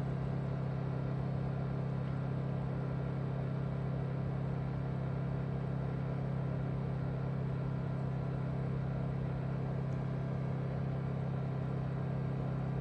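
Honda portable generator running steadily with eco mode off, heard from about 30 feet away as an even engine hum, around 53 decibels on a meter.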